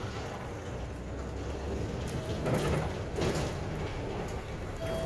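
Cabin sound of a 2018 Hyundai New Super Aerocity CNG city bus under way: a steady low engine hum with road noise, and a brief louder clatter around the middle.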